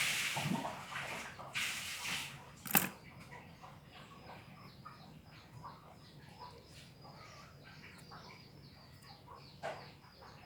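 Brief scraping and rustling from hand-stripping a fiber optic cable, with one sharp click about three seconds in. After that it goes quieter, with faint bird chirps.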